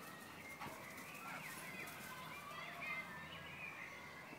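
Woodland birds chirping and singing faintly, with a few brief rustles of dry leaf litter underfoot.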